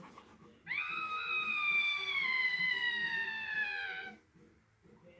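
A cat's long, drawn-out meow that slides slowly down in pitch for about three and a half seconds, then stops.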